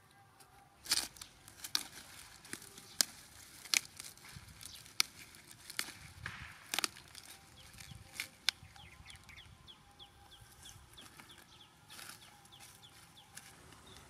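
Sharp snaps and cracks as cauliflower stalks and leaves are broken off and cut by hand, about a dozen separate ones over the first eight seconds. After that a bird calls in a quick run of short, high chirps.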